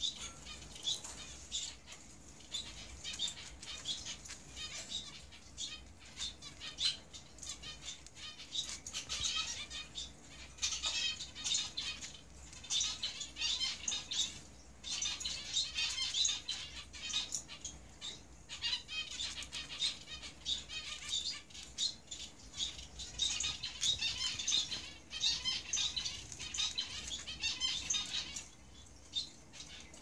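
Lutino cockatiel grinding its beak: bouts of fast, soft grating clicks with short pauses between them. This is typical of a contented, drowsy cockatiel settling toward sleep.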